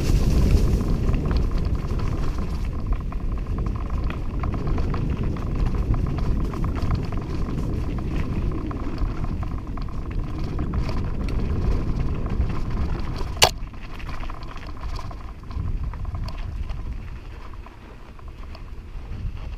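Scott Aspect 940 hardtail mountain bike rolling fast over a dirt trail: a steady rumble of tyres and rattle of the bike, with one sharp click about two-thirds of the way through, then quieter as it reaches a sandy path near the end.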